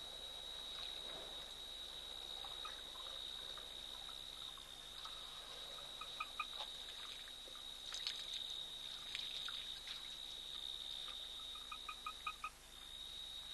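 African elephant drinking at a waterhole: faint splashing and trickling of water as it lifts trunkfuls to its mouth, with a few sharp splashes a little past the middle. A steady high-pitched insect whine runs underneath, and twice an unseen animal gives a quick run of four short calls.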